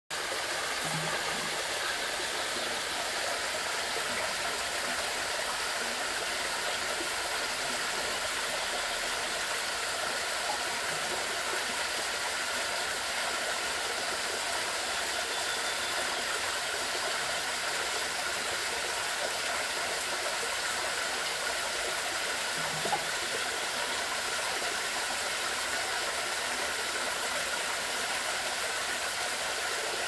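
Mountain stream running steadily over a small rocky cascade into a pool: an even rush of water with no change in level.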